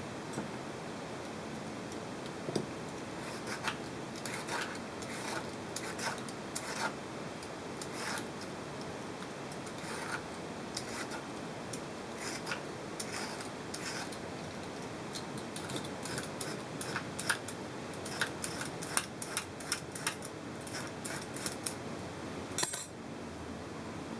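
Metal vegetable peeler scraping strips off a raw carrot in quick, irregular strokes, with light taps on a wooden cutting board. One longer, louder scrape comes near the end.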